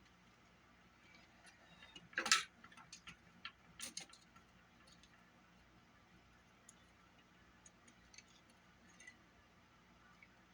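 Small sharp clicks and taps of hand tools and small parts on a Sony Walkman's cassette mechanism, a quick cluster about two to four seconds in, the loudest near the start of it, then a few faint scattered ticks.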